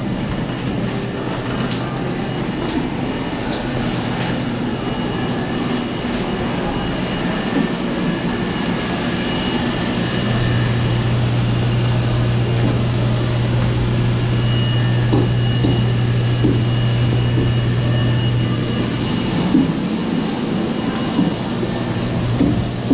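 Shopping cart rolling over a hard store floor, its wheels and wire basket rattling steadily. About halfway through, a steady low hum comes up for several seconds, and a few clicks and knocks come near the end.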